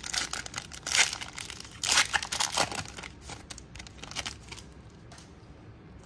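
Foil wrapper of a Pokémon booster pack being torn open and crinkled by hand. The crackling is loudest in the first three seconds, then thins to a few faint rustles as the cards come out.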